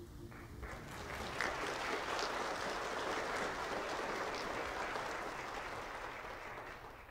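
Church congregation applauding at the end of a hymn played on alto clarinet, the clapping swelling about a second in and dying away near the end.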